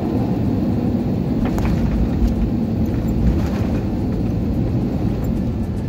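Steady low rumble of an Airbus A321 airliner, with a few faint knocks about a third and halfway through.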